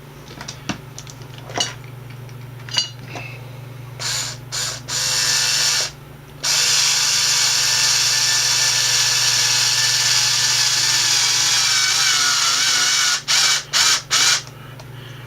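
Electric drill-driver driving a stainless steel wood screw down into the center of a Zippo handwarmer: a few light clicks, then short trigger bursts about four seconds in, a steady run of about six seconds with a motor whine, and a few short bursts near the end as the screw is seated.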